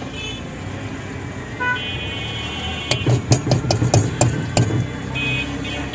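Street traffic with vehicle horns honking several times. A run of sharp clicks begins about halfway through.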